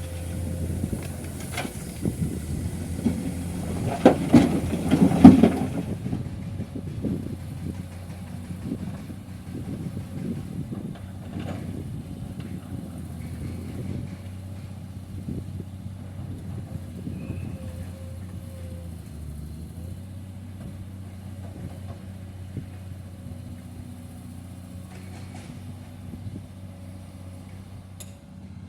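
Diesel engines of an excavator and dump truck running steadily, with a burst of loud clattering and banging about four to five seconds in.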